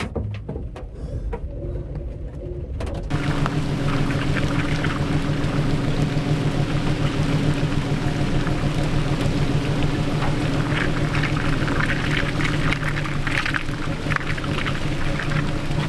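Truck engine running at a steady low idle in heavy rain, with rain hiss and patter over the engine drone. A quieter stretch with a few knocks gives way abruptly, about three seconds in, to the full rain and engine sound.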